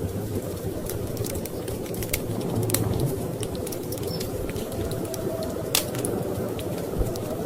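Wood fire in a fireplace crackling, with irregular sharp pops, over a steady low rumble.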